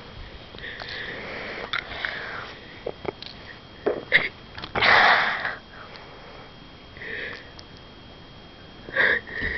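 A person sniffing and breathing close to the microphone: several short breaths, with a louder, longer one about five seconds in.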